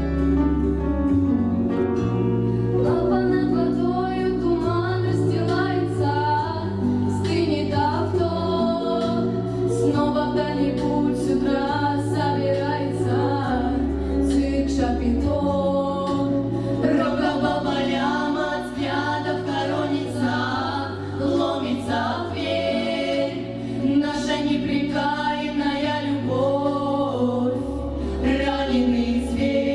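A vocal group singing a song in several-part harmony over instrumental accompaniment with a sustained bass line.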